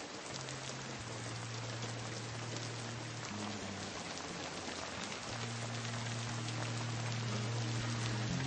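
Heavy rain falling steadily, with low, held music notes coming in under it about half a second in and growing louder toward the end.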